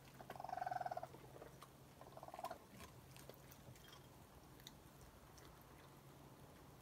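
Raccoons chirping: two short, rapid trills in the first few seconds, the first the loudest, among scattered small clicks as they eat.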